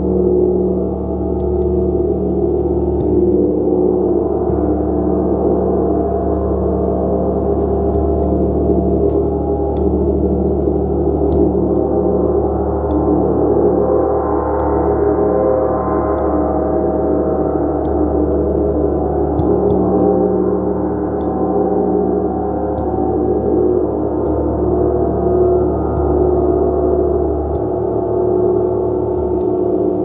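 A 36-inch gong played continuously, making a dense sustained wash of many overlapping ringing tones that grows brighter around the middle.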